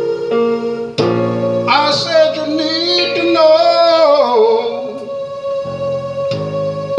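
A man sings one long, wavering phrase into a microphone over sustained electric keyboard chords. The voice comes in about two seconds in, slides down and stops about two-thirds of the way through, leaving the chords.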